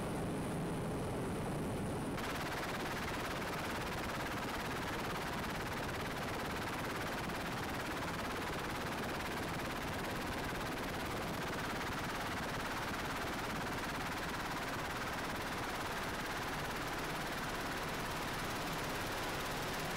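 Helicopter in flight: a steady, dense rush of rotor and turbine noise, turning brighter and hissier about two seconds in.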